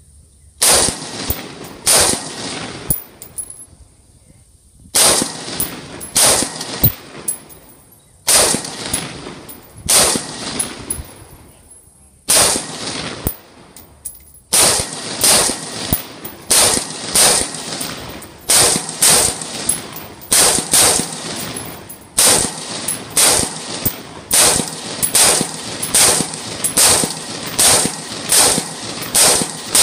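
SIG 516 AR pistol, a short-stroke gas-piston AR, firing single semi-automatic shots. There are a few spaced shots at first, then a steady string of about one and a half shots a second through the second half.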